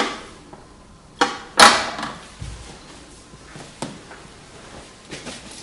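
A few sharp clicks and knocks of handling, the loudest two close together a little over a second in, with fainter ones later.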